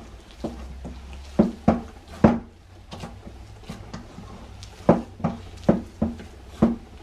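Hands kneading tortilla dough in a stainless steel mixing bowl: irregular thumps of the dough being pressed against the metal, about eight in all, each leaving the bowl ringing briefly.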